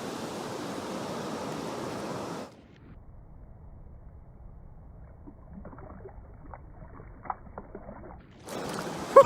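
Rushing river water, a steady loud hiss, for about two and a half seconds. Then it cuts off suddenly to a much quieter low rumble with scattered faint clicks.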